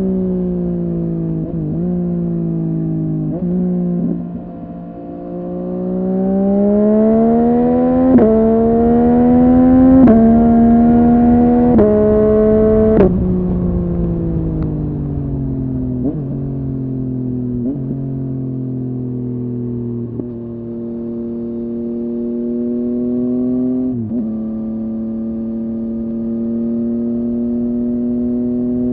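Yamaha MT-09's inline three-cylinder engine through a Dominator HP8 aftermarket exhaust, ridden on the road: the pitch steps with gear changes, climbs under acceleration with several quick shifts, drops sharply about halfway through as the throttle is closed, then settles into a steady cruise.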